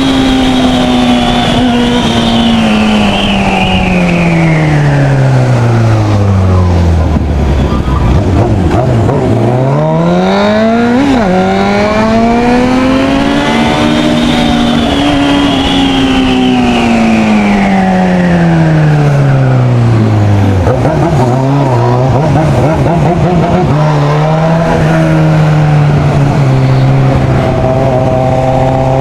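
Motorcycle engine running under way. Its revs fall steadily for several seconds, climb again, fall a second time, then hold steady near the end.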